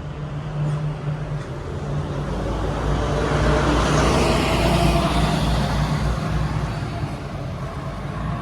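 A road vehicle driving past, its engine and tyre noise building to a peak about halfway through and then fading, over a steady low engine hum.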